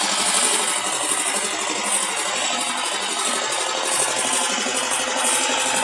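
Loud, steady street noise of a crowded procession, with a mechanical, engine-like running sound and rattling mixed in.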